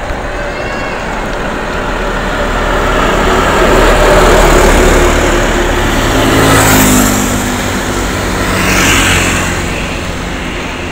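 Road traffic passing close by: a vehicle goes by loudly about four seconds in, then a motorcycle passes, its engine note falling in pitch as it goes by.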